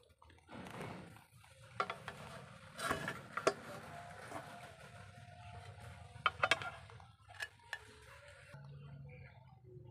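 A cat crunching dry kibble: irregular sharp crunches and clicks, several in quick succession about three and six and a half seconds in. A soft rustle sounds just after the start.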